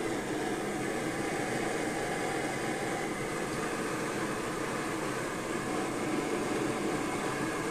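Borde self-pressurizing stove burning white gas (naphtha) under a pot of water, a steady, even hiss from the burner.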